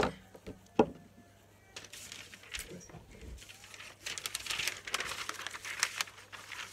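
Magazines being handled: glossy paper pages rustling and crinkling, busiest near the end. Two sharp knocks come in the first second.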